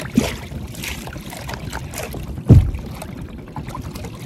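Work sounds on a small fishing boat at sea as the crew haul by hand after a counted pull: a steady low rumble of water and wind, a few light knocks, and one heavy thump about two and a half seconds in.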